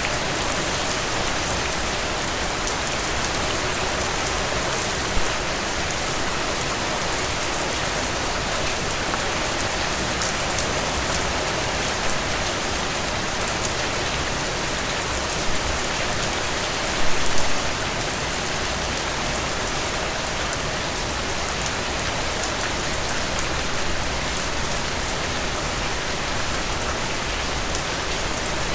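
Steady heavy rain with drops pattering on a surface, with a few louder drips, the strongest cluster about two-thirds of the way through.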